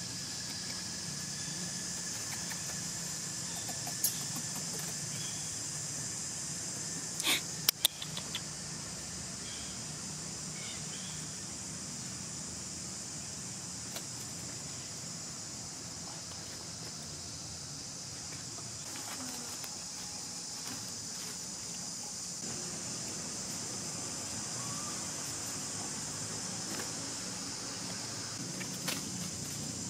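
Steady outdoor ambience: a high, even insect drone over a low rumble, with a few sharp clicks, the loudest cluster about seven to eight seconds in.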